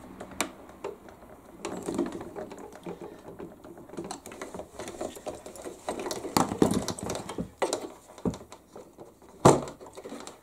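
Small irregular plastic clicks and knocks as a servo arm is screwed onto a model boat's rudder post and worked back and forth by hand, with one sharper knock about nine and a half seconds in.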